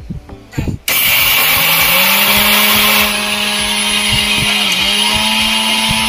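Electric mixer grinder motor switched on about a second in, grinding rice in its steel jar; its hum climbs in pitch for about a second as it spins up, then runs steady and loud.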